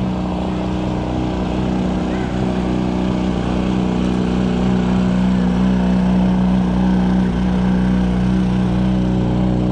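Vehicle engine idling with a steady, even hum at close range, getting a little louder a few seconds in.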